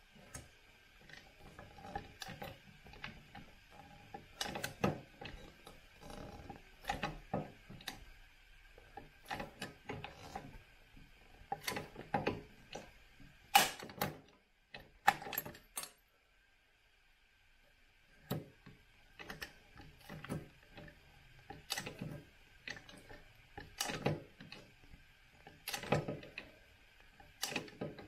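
Hand pop-rivet gun being squeezed over and over, its handles and jaws clicking as they grip and pull the rivets, with sharp snaps as rivet mandrels break off, loudest about halfway through.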